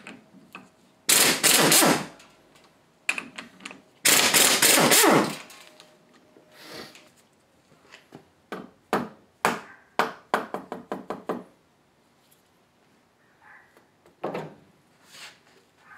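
Impact wrench run in two hammering bursts about a second long each, loosening the cover bolts on the top of a 1978 Ford Bronco power steering gearbox. Then a quick run of metal clicks and knocks as the box and parts are handled, and one thump near the end.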